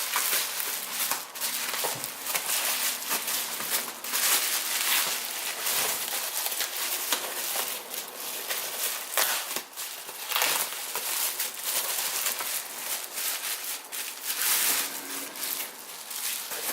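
Packing wrap crinkling and rustling continuously as a boxed part is unwrapped by hand, with many small crackles.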